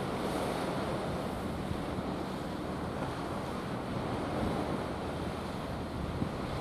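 Sea surf washing onto a sandy shore, with wind buffeting the microphone in a steady low rumble.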